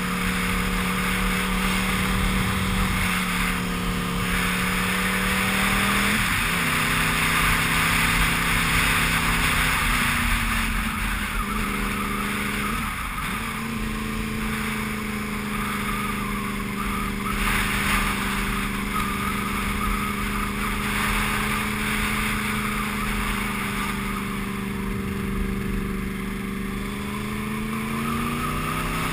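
Sport motorcycle engine running steadily under load on a climb, with wind rushing over the microphone. The engine note drops briefly twice, about six and thirteen seconds in, and climbs in pitch near the end.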